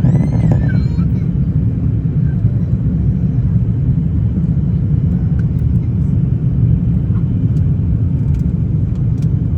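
Steady low rumble of an Airbus A350 airliner in flight, with a brief bending tone in the first half second.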